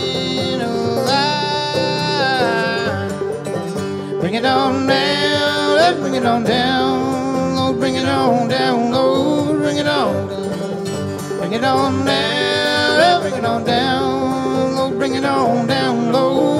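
Acoustic guitar and banjo playing a song together, with singing over the picking.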